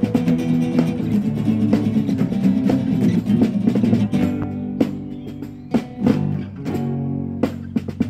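Acoustic guitar played without singing: strummed chords with sharp plucked attacks, thinning to sparser single strikes about halfway through.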